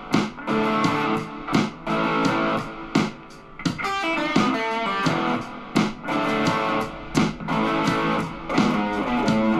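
Electric guitar played solo: chords struck in short, sharp stabs with brief gaps between them, and a quick run of single notes about four seconds in.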